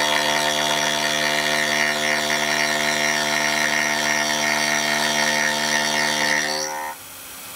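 12 mm single-insert indexable endmill rough-cutting St37 steel on a CNC mill spindling at 4600 rpm: a loud, steady, pitched cutting sound with a buzzy hum under it. Near the end it drops sharply to a much quieter running sound.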